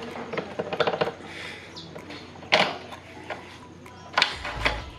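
Sharp metal clicks and clinks of a motorcycle front axle being pushed through the wheel hub and fork, the loudest about halfway through and another near the end.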